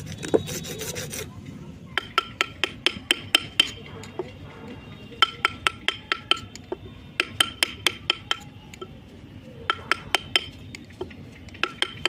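A file rasping briefly on a metal bowl, then a small hammer tapping an engraving chisel into the bowl's rim in quick runs of sharp taps, several a second, with short pauses between runs; each tap makes the bowl ring.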